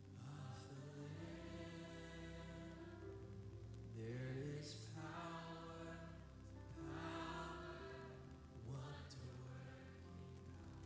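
Slow worship song sung by a group of voices, holding long notes with gliding changes of pitch over a sustained low accompaniment.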